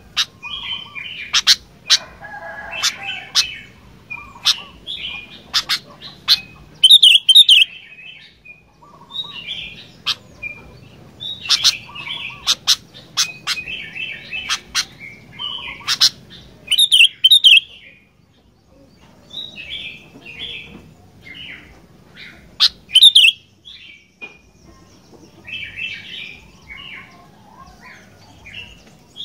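Sooty-headed bulbul singing loud, repeated bubbly phrases in bursts, with sharp piercing notes and a short pause midway. It is a lure song (pancingan) played to prompt other bulbuls to start singing.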